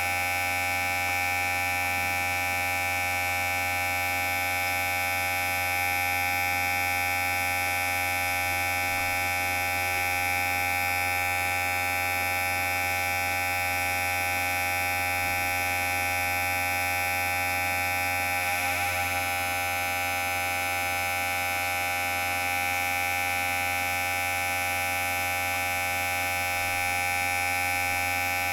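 Electric hair clipper running with a steady, unbroken buzz, wavering briefly about two-thirds of the way through.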